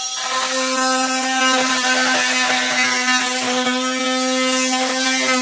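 Cordless oscillating multi-tool running steadily as its blade cuts through a GRP fibreglass roof trim: a steady buzz with a rasping cutting hiss over it.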